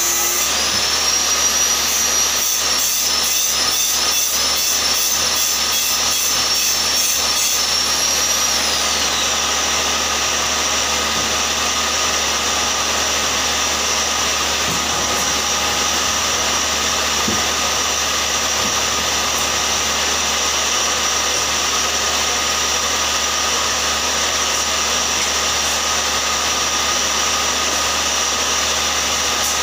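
Electric power tool running in a workshop: a high whine comes up at the start, holds, then winds down and fades about nine seconds in. A loud, steady rushing noise continues underneath throughout.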